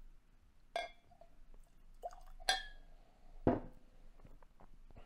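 Glass clinking as whisky is poured from a glass bottle into a tasting glass: two short clinks with a brief ring, then a heavier thud about three and a half seconds in as the bottle is set down on the bench, followed by a few light taps.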